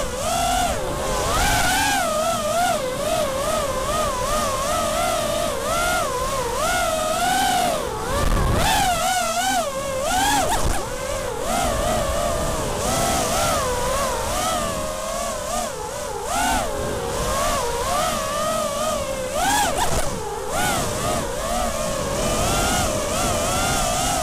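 FPV racing quadcopter's four Emax 2205 2300KV brushless motors and propellers whining in flight, the pitch rising and falling constantly as the throttle is worked, with a rushing hiss of prop wash underneath.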